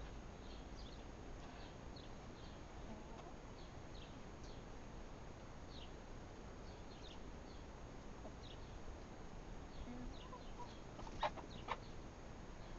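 Young hens giving short, high, soft peeps scattered through, over a faint steady hiss. Near the end there are a couple of sharp knocks.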